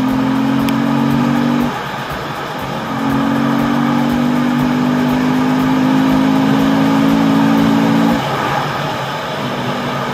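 Honda CRF250L dual-sport motorcycle's single-cylinder four-stroke engine running at a steady pace along a dirt trail. Its note drops away briefly about two seconds in, then holds steady again before easing off near the end.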